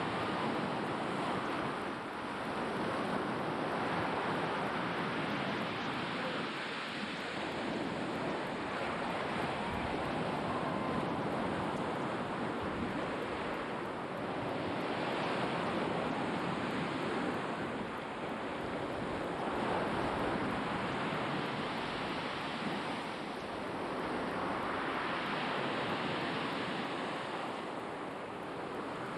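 Black Sea waves breaking and washing on the shore, a continuous surf that swells and eases every few seconds.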